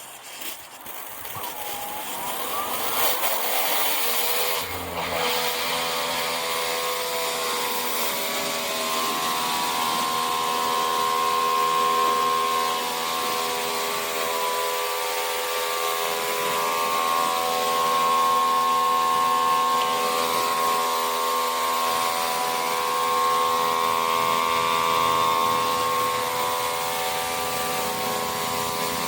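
A pressure washer's motor spinning up, with a rising whine over the first few seconds, then running at a steady pitch under load.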